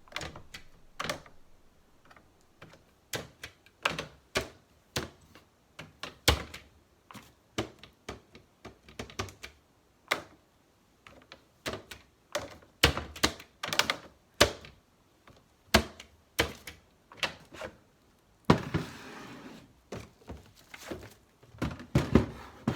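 Irregular clicks and knocks of hard household objects being handled and set down, with a brief rushing hiss about three quarters of the way through.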